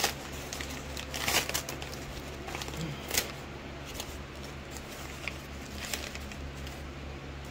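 Crumpled packing paper crinkling and rustling as a taped paper bundle is handled and pulled open, with irregular crackles that are loudest about a second and a half in and just after three seconds. A low steady hum runs underneath.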